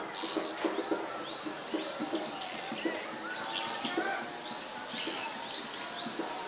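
Japanese pygmy woodpecker calling, four stronger calls spread through the stretch, among many short chirps from other birds.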